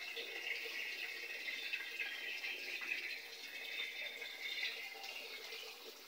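Water draining out of a Panasonic top-load automatic washing machine's tub on the spin setting, a steady rush of running water that fades a little near the end; the drain stage before the spin-dry begins.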